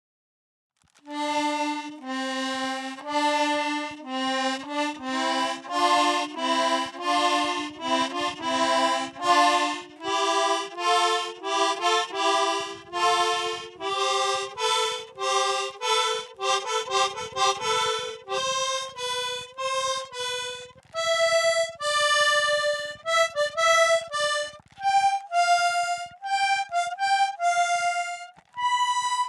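Accordion playing a long string of short, detached notes and chords of different pitches and lengths, not a tune. It starts about a second in, and the notes shift higher in pitch over the course of the run.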